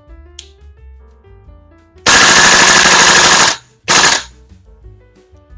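VFC M16A2 Carbine (Colt 727) gas blowback airsoft rifle firing a fully automatic burst of about a second and a half. It follows with one more single shot, each report loud and sharp from the cycling gas blowback bolt.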